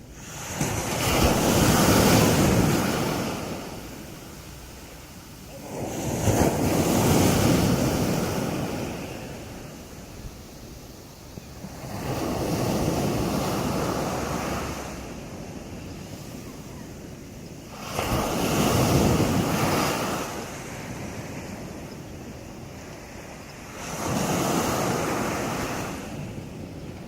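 Waves breaking on a beach: five surges of surf about six seconds apart, each swelling up and washing back out, with a quieter steady wash in between.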